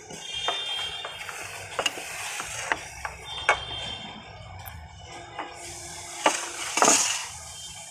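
Wet mouth sounds of eating slate pencil paste: sticky lip smacks and squelching clicks at irregular intervals, with a louder, longer smack near the end.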